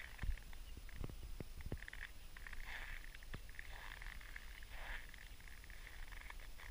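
Footsteps crunching on cold, packed snow, a gritty crunch every second or two, with a few short low knocks in between.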